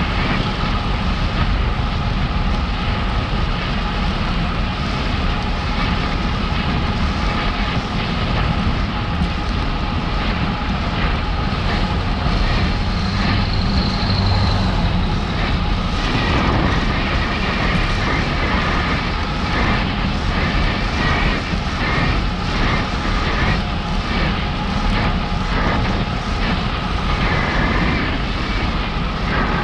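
Wind rushing over the microphone of a camera on a moving bicycle, a steady roar with a steady whine running through it. Short high chirps come in from about halfway.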